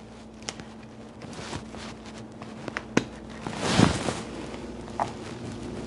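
Squeeze bottle of cream of coconut shaken by hand, giving a few scattered light knocks and one louder burst of sound a little before four seconds in, over a faint steady hum.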